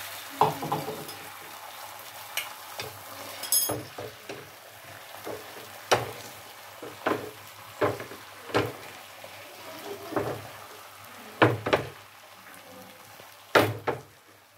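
Beaten egg frying on a hot flat griddle, with a steady sizzle. Sharp clicks and taps are scattered through it every second or so.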